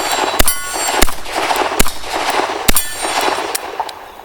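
Colt Diamondback .38 Special revolver fired four times, a shot roughly every three quarters of a second, each trailing off. A steel plate target rings after two of the hits.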